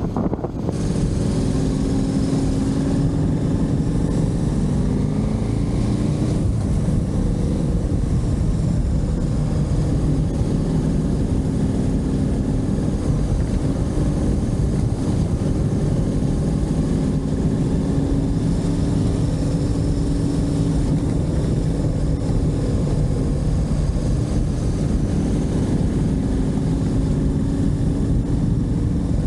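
Motorcycle engine running on the move, its pitch climbing and dropping back several times as it accelerates and shifts gear, over a steady rush of noise.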